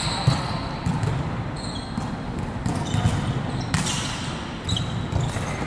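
Volleyball being played: a series of sharp slaps as the ball is struck by hands and forearms or hits the court, roughly a second apart, echoing in a large hall.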